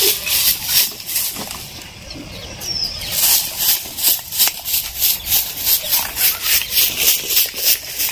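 Broom sweeping in quick, even strokes, about three a second, with a break of a second or so near the start before the strokes resume.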